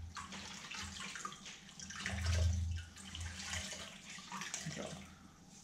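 A cleaning cloth being swished and kneaded by hand in a plastic bucket of water: irregular sloshing and splashing, with a low rumble about two seconds in.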